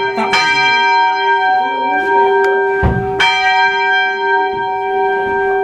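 A single church bell struck twice, about three seconds apart, each stroke ringing on with a steady hum beneath its higher tones, heard from the ringing chamber below the bells. A dull knock comes just before the second stroke.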